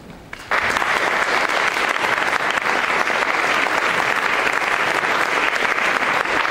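Audience applauding: dense clapping breaks out suddenly about half a second in and carries on steadily.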